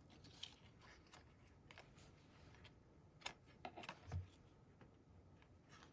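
Near silence, with a few faint rustles and light ticks partway through from string and a paper craft tag being handled as the string is tied into a bow.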